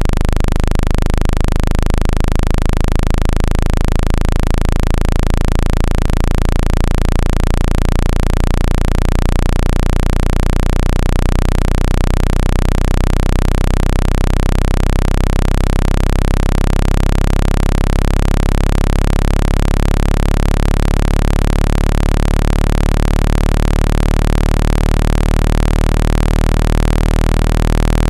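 Synthetic speaker-cleaning sound for ejecting water from a phone speaker: a dense cluster of steady low droning tones over a constant hiss, played loud and unbroken.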